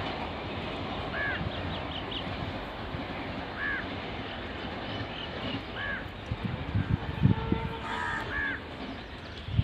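A bird calling about every two seconds, five short arching calls in all, the last two close together near the end, over a steady background rush.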